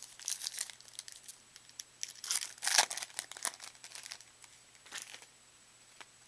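Crinkling and rustling of trading-card packaging being handled. It comes in several short bursts, loudest in the middle.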